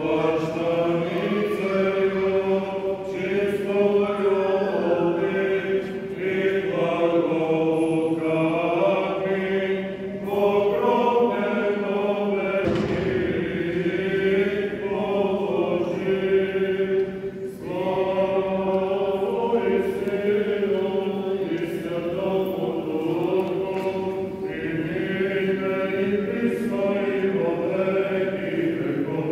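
Eastern Orthodox clergy chanting a Good Friday service hymn together in slow, sustained phrases, with a steady low note held under the moving melody.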